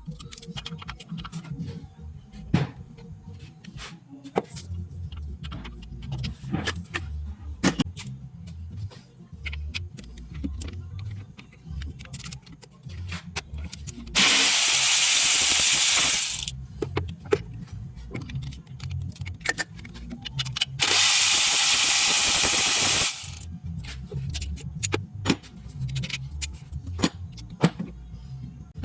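Repair work with hand tools: scattered clinks and knocks of metal tools. Twice, about six seconds apart, a power tool runs for about two seconds at a time, loud and hissing.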